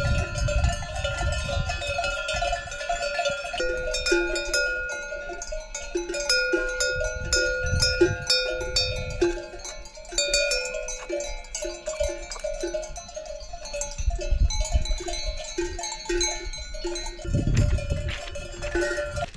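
Bells on grazing cattle clanking and ringing, several overlapping bell tones struck irregularly. Low rumbles come in now and then.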